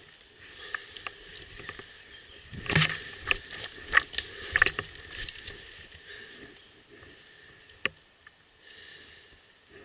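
Footsteps through leaf litter and undergrowth, with leaves brushing and twigs crackling underfoot as a person moves along a woodland path. The crackles are irregular, densest about three seconds in, with a few sharp snaps after that.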